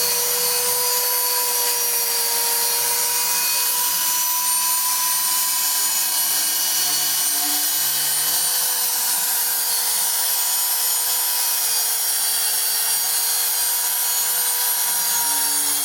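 Small CNC engraving machine milling a printed circuit board: the spindle motor runs with a steady whine and a high hiss of cutting, while lower motor tones come and go and shift pitch every few seconds as the axes move.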